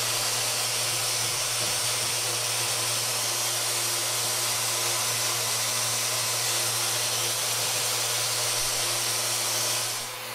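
Festool Rotex RO 90 sander running steadily in delta mode, its triangular pad sanding a wooden chair frame. The motor whir and sanding hiss drop in level near the end.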